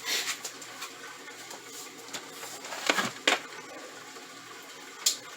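A few brief handling knocks and scrapes, about three in all, over a quiet steady room hum.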